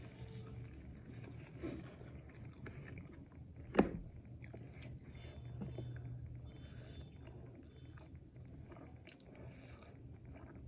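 Close-miked chewing of food, with small mouth and utensil clicks and one sharp click about four seconds in, over a low steady hum.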